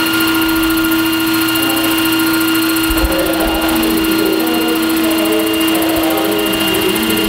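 Large radio-controlled scale model helicopter hovering: a steady, even whine from its drive and rotor, with a strong single tone and fainter higher ones, and a slight wavering in pitch as it moves.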